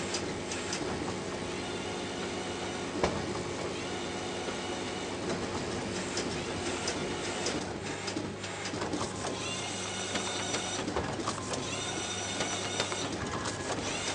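Paper-finishing machinery running: a collator and booklet-making line humming steadily, with repeated short rising motor whines, scattered clicks and a sharp knock about three seconds in.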